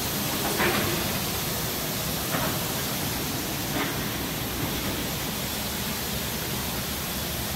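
Steady hiss of plant machinery around a low-level case palletizer, with a few faint short clicks, about one every second and a half in the first four seconds.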